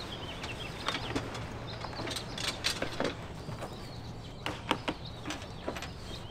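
Scattered clicks, knocks and rustles as a folding solar panel in its case is handled and lifted down from a vehicle's roof rack.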